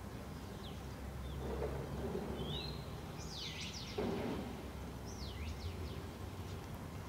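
Steady low rumble of distant earthmoving machinery (backhoe loaders and excavators) at work, with several birds chirping over it in short sweeping calls.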